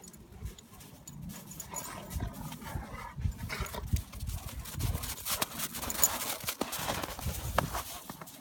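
Two dogs playing in snow: paws scuffling and crunching through the snow in an irregular patter that grows busier after about a second.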